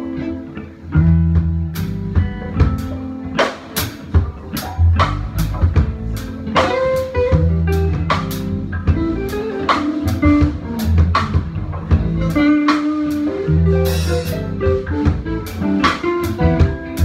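Live band playing: guitar over deep, held bass notes, with a drum kit coming in about two seconds in and keeping a steady beat.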